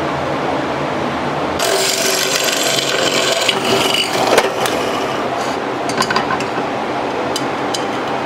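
Hand work on steel: a scraping, rubbing sound for about three seconds that ends in a sharp knock, then a few light clicks and taps, over a steady shop hum.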